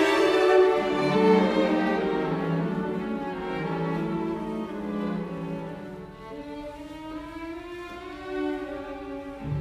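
Slow instrumental background music with long held notes, growing softer through the middle and swelling again near the end.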